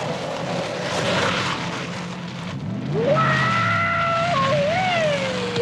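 Film soundtrack of a car engine running hard with tyre noise as the car makes the jump. About three seconds in, a pitched tone rises and then wavers and falls.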